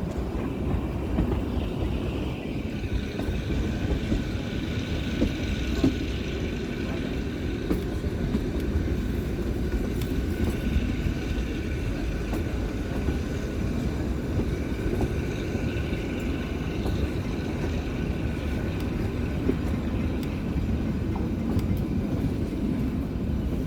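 Kalka–Shimla narrow-gauge toy train running: a steady rumble of wheels on the track, with faint high whining tones that rise and fade now and then.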